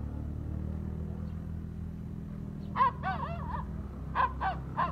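Puppy whimpering: a run of short high, arching whines about three seconds in, then three brief yelps near the end, over a steady low rumble.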